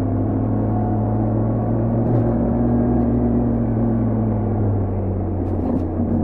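BMW R1250GS Adventure's boxer-twin engine and exhaust running at low, steady revs, its pitch holding even throughout.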